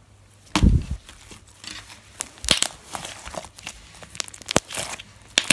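Pale pink slime being stretched and squeezed by hand, giving off irregular sticky crackles and pops, with a dull thump about half a second in.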